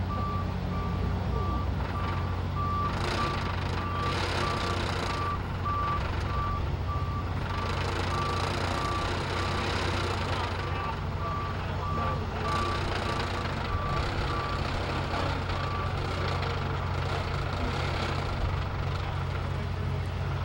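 A large vehicle's reversing alarm beeping in a steady string of short beeps at one pitch, over the steady hum of a diesel engine running. The beeping stops about three-quarters of the way through, and the engine keeps running.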